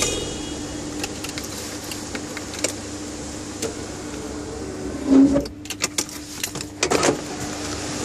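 Steady noise of heavy rain under a low steady hum, broken by scattered sharp clicks and knocks. The loudest knock comes about five seconds in, followed by a quick cluster of clicks.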